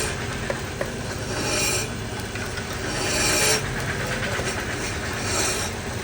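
Wood lathe running with a steady low hum while a turning tool cuts into the spinning wood in repeated passes, each cut a rising hiss lasting about half a second, roughly every one and a half to two seconds.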